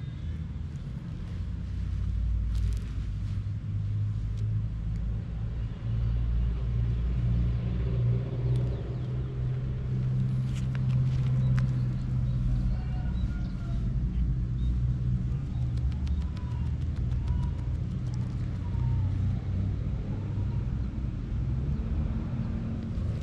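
A steady low rumble, with faint wavering higher tones drifting in and out in the middle.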